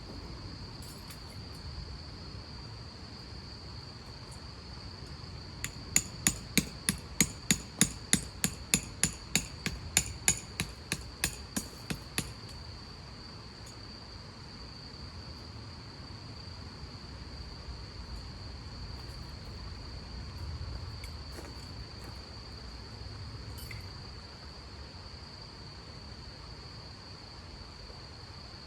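A hammer driving a tent peg: about twenty sharp blows, about three a second, for some six seconds. A steady high chirring of insects runs throughout.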